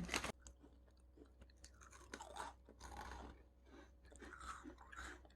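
A person chewing food close to the microphone, with faint, irregular crunching bites.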